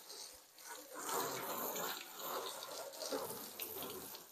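Water from a garden hose splashing against a car and onto wet concrete, rinsing off sand; the splashing picks up about a second in and varies in strength.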